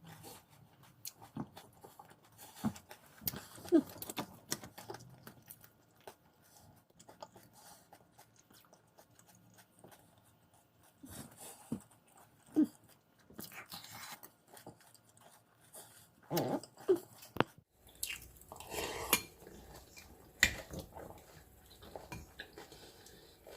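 Close-miked chewing and mouth sounds of someone eating, with scattered clicks of cutlery against a dish.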